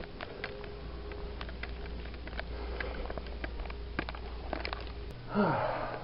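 Steady low hum of a ship's interior with scattered light ticks and taps. A little after five seconds in the hum changes abruptly and a short breathy rush with a falling pitch sounds.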